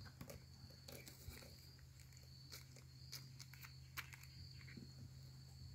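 Near silence with faint scattered clicks and rustles of a plastic tackle box and a plastic packet of fishing line being handled; the clearest tick comes about four seconds in. A faint steady high hum runs underneath.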